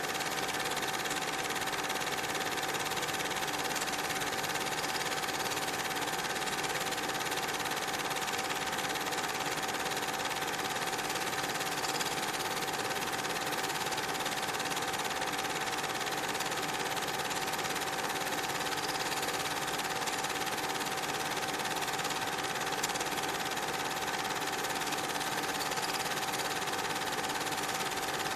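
Cine film projector running steadily: a constant mechanical whirr and rapid clatter with a steady hum-like tone, unchanging throughout.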